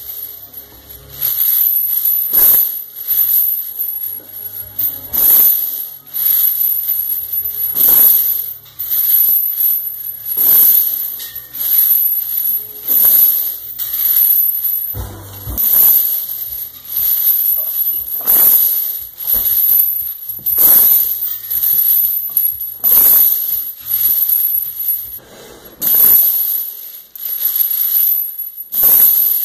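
About 120 lb of heavy steel training chains hanging from a barbell, clanking and rattling with every squat rep. The loudest clank comes about every two and a half seconds, with smaller jingles in between.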